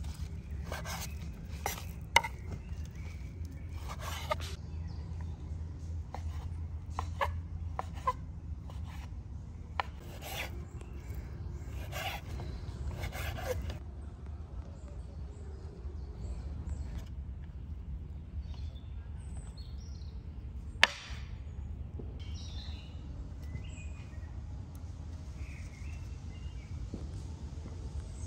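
Scattered knocks and scraping from food preparation over a steady low rumble; the knocks thin out about halfway through.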